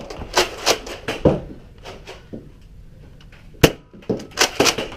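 A scatter of sharp clicks and knocks from Nerf blaster play, with one sharp snap about three and a half seconds in and a quick run of knocks just after four seconds.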